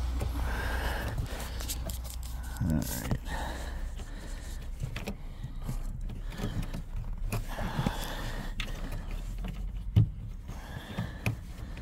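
Handling noise as a hand works under a car's rear seat: a knit sleeve rubbing close to the phone, and plastic parts creaking and clicking, with a sharp knock about ten seconds in.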